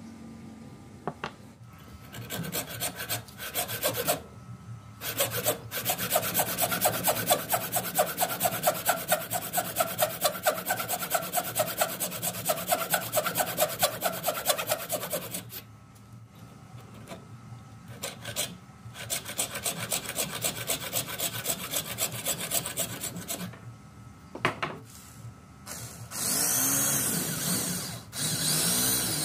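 A hand tool scraping back and forth across wood in steady, rhythmic strokes, in two long runs with short pauses between them. Near the end a power tool starts up with a whine that shifts in pitch.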